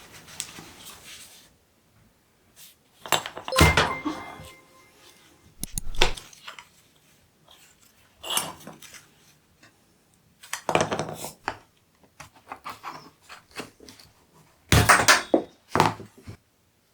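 Clinks and knocks of metal objects being handled and set down on a hard surface, in about six separate bursts with pauses between; one about three and a half seconds in rings briefly.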